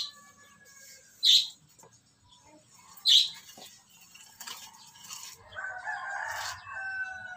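A rooster crowing near the end, one call about two seconds long. Earlier come two short, sharp high-pitched sounds.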